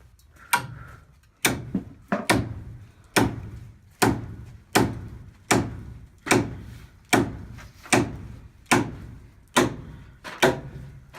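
Heavy hammer blows on a log, a steady series of about thirteen strikes, one every second or less, each with a short dull ring.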